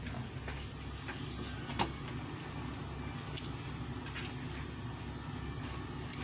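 Wok of fish soup simmering on a kitchen stove: a steady low hum with scattered light clicks and taps, one sharper tick a little under two seconds in, as fish pieces are moved in the pan.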